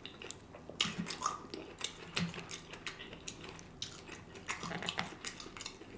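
Close-miked wet chewing with irregular sharp mouth clicks as a man eats pasta, the sound of an ASMR eating show.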